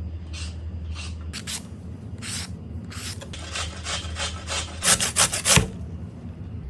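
Cheese being grated on a hand grater: a series of rasping strokes, coming faster and louder about five seconds in, then stopping.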